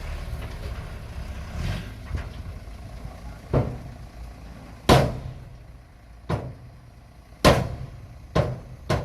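Small Komatsu bulldozer's diesel engine running steadily, with a run of sharp knocks from about three and a half seconds in, the loudest two about five and seven and a half seconds in.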